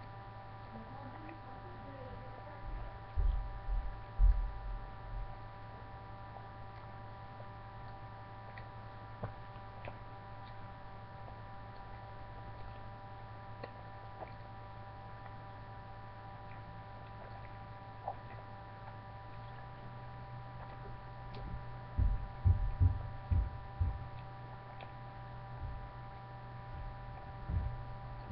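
Steady low electrical hum with a few faint high steady tones above it. Clusters of dull low thumps come about three to five seconds in and again about twenty-two to twenty-four seconds in, with one more near the end.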